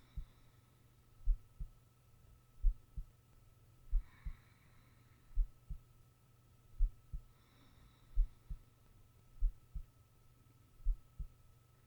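A sleeping person's heartbeat heard close through the chest: slow paired lub-dub thumps at about 44 beats a minute. Soft breaths come every few seconds over a faint steady hum.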